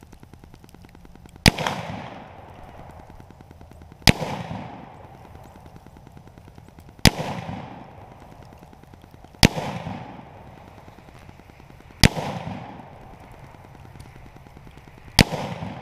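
Six rifle shots from an M1 Garand semi-automatic rifle in .30-06, fired one at a time a few seconds apart. Each sharp crack is followed by about a second of fading echo.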